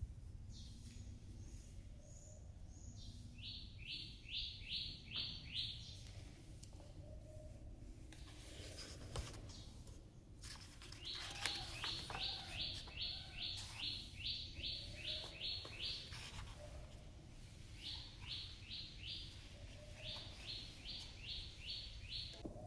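Birds chirping: one bird gives quick runs of short, high chirps, about five or six a second, in several bursts, with a few thinner, higher calls near the start.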